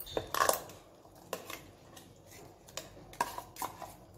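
A spoon scraping ground masala paste out of a grinder jar and knocking against the jar and the rim of a pressure cooker pot: a string of sharp clinks and knocks, several in a row.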